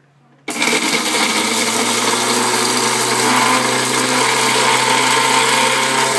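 Electric kitchen mixer grinder switching on about half a second in and running loud and steady, grinding a wet spice masala.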